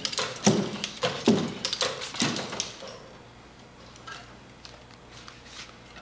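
Feet of a powered two-legged walking robot striking a plywood walkway: a heavy footfall about every 0.85 s with clattering clicks between. The steps stop about three seconds in, leaving fainter scattered clicks and knocks.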